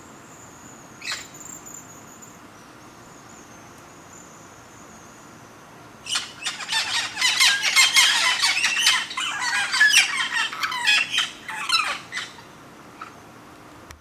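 Hispaniolan amazon parrot calling: a short call about a second in, then a dense run of loud, rapid calls from about six seconds in until about twelve seconds.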